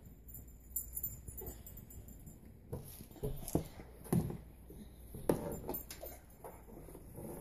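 Scattered light knocks, clicks and rattles of a plastic doorknob safety cover and the door as a toddler grabs and turns them, with the strongest knocks about four and five seconds in.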